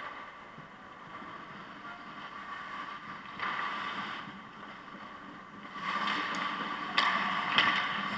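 Ice hockey skate blades scraping and carving on the ice, getting louder about six seconds in as skaters come in close to the net. Near the end there are a couple of sharp clacks of stick and puck.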